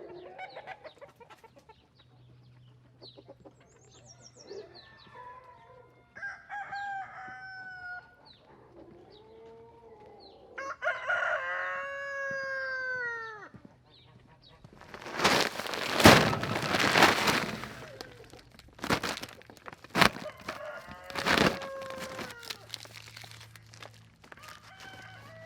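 Chickens clucking, with a rooster crowing once around the middle. In the second half, loud rushing, hissing bursts of noise drown them out.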